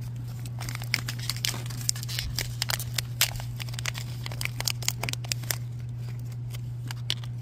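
Thin crimped packet wrapper being torn and crinkled open by hand, a run of sharp crackles that thins out near the end, over a steady low hum.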